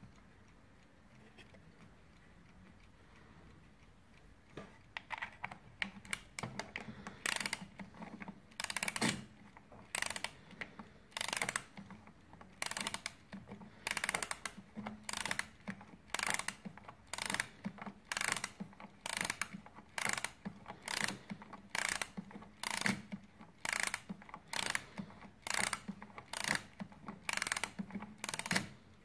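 An eight-day Warmink mantel clock's mainspring being wound with a crank key, the winding ratchet clicking in a cluster at each turn, about once a second, starting a few seconds in.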